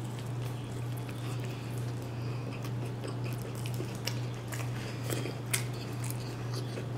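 Close-up biting and chewing of a fried chicken sandwich, with many short, scattered mouth clicks and smacks, over a steady low hum.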